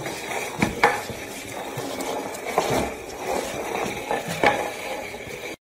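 A potted plant's pot scraping across a tile floor as a small dog pushes it along, with a few sharp knocks where it bumps.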